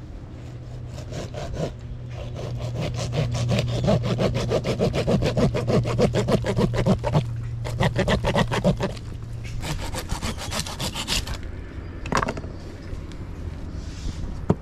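Knife sawing back and forth through a large barracuda's body and backbone to cut it into steaks, a long run of quick, even strokes that stops about eleven seconds in, followed by a single knock a second later.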